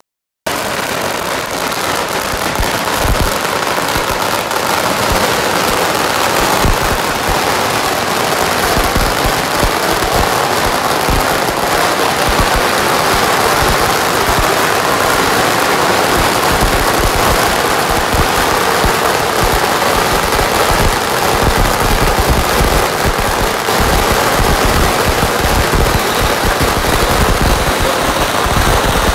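A long string of firecrackers going off in rapid, unbroken crackling, set off to drive away misfortune. It starts about half a second in and keeps going.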